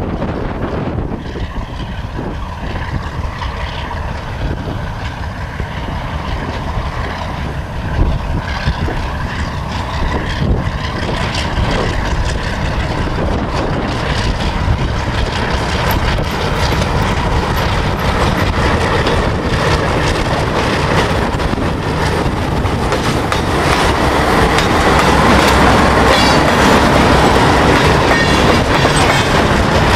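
ALCo RSD16 diesel locomotive hauling a freight train past at speed, engine running under load. The wheels clatter over the rails, with a couple of sharp knocks about eight and ten seconds in. It grows louder in the last quarter as the locomotive comes close.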